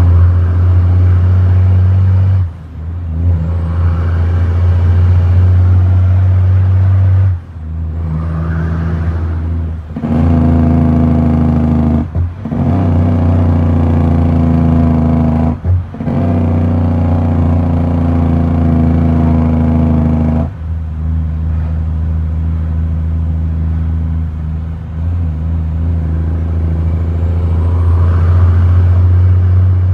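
Heavy truck's diesel engine heard from inside the cab while driving, pulling with a steady low note. The note breaks off briefly about six times and comes back at a new pitch as the driver shifts gears.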